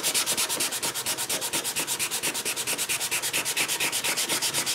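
Sandpaper rubbed by hand over a small wooden blank in quick, even back-and-forth strokes.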